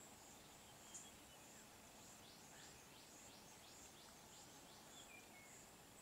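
Near silence: faint outdoor ambience, with a steady high insect hum and a run of soft, falling bird chirps, about three a second, in the middle.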